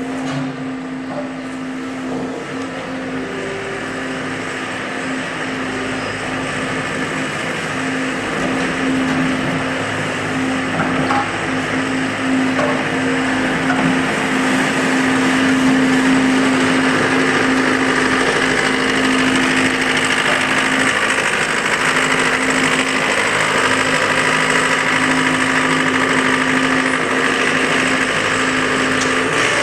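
Engine of a farm machine running steadily at an even speed, with a constant low hum that grows a little louder over the first half.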